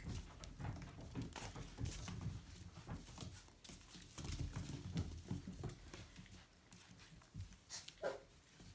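Aussiedoodle puppies shuffling and scrabbling: a run of soft, irregular scratches and clicks, with a short whine near the end.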